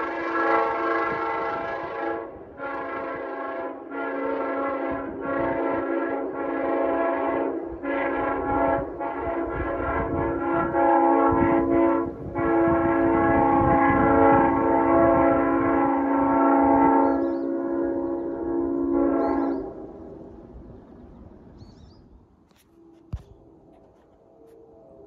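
Diesel train horn playing a horn show: a run of blasts of varying length, a quick string of short toots, then two long blasts. It stops about 20 seconds in, and the train's noise fades away.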